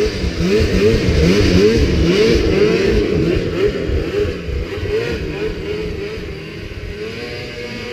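Snowmobile engine revving hard as the sled climbs a steep snow slope, its pitch rising and falling about twice a second. It grows a little quieter and steadier in the last few seconds as the sled moves away up the hill.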